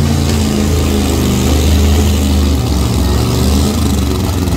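Pulling vehicle's engine running loud with a deep note that wavers a little in pitch.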